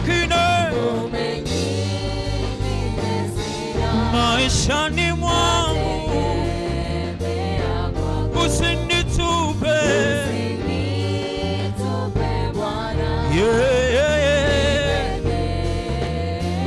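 Gospel choir singing a Swahili hymn over instrumental backing with a steady bass.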